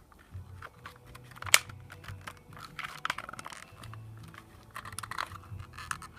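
Plastic parts of an airsoft pistol clicking and rattling as it is handled and fitted back together, with one sharp click about a second and a half in.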